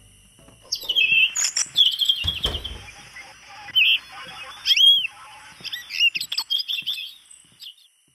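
Recorded birdsong, a run of quick chirps and tweets, played from the birdhouse doormat's built-in sound module once it is stepped on. There is a single thump about two seconds in.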